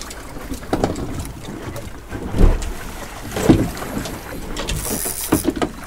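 Water slapping against the hull of a small boat at sea, with wind on the microphone. There are a few dull thumps, the two loudest about two and a half and three and a half seconds in.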